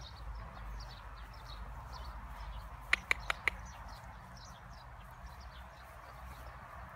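Small birds chirping over and over, with four short, sharp clicks in quick succession about three seconds in.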